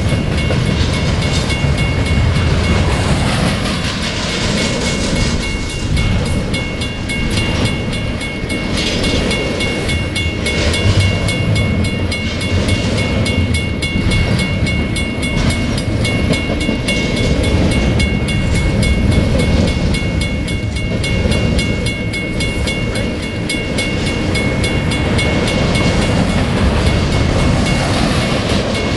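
Double-stack intermodal container well cars rolling past on steel rails: a steady low rumble with rapid, continuous wheel clicks, and a faint steady high whine running underneath.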